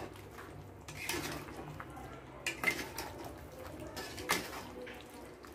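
Metal spatula scraping and knocking against a metal kadhai as paneer cubes are stirred through thick chilli sauce, with a few sharp clinks among softer scrapes.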